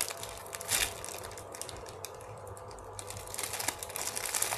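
Scattered light clicks and rustling as a popcorn squishy toy is handled, with one sharper click about a second in and a quick run of clicks near the end.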